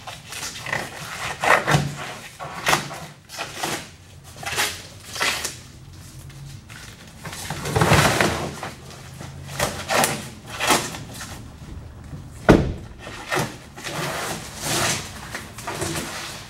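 Printed vinyl wrap being peeled by hand off a 2016 Chevrolet Express van's painted door and side panel, in irregular pulls, each a short burst of tearing noise, with a sharper crack about twelve and a half seconds in.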